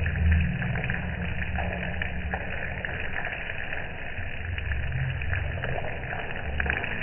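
Outdoor ambience on a wet rooftop: wind rumbles unevenly on the microphone over a steady hiss, with faint scattered ticks.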